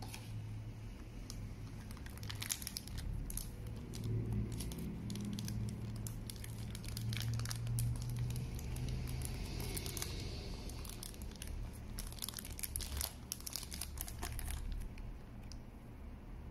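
Clear plastic bag crinkling as it is handled and lifted out of a hard case, in irregular crackles that start about two seconds in and come thickest early on and again near the end, over a low steady hum.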